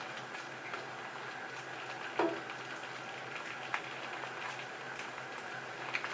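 Shrimp sizzling steadily in a frying pan while a plastic slotted spatula stirs them, with scattered light clicks from the spatula and one louder knock a little over two seconds in.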